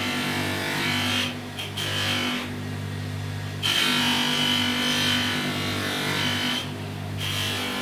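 Bench grinder fitted with buffing wheels running steadily, with a hiss and a high whine while a brass part is pressed against the spinning wheel with polishing compound during coarse polishing. The contact sound drops out briefly three times, about a second in, for about a second near the middle, and near the end, as the part is lifted off.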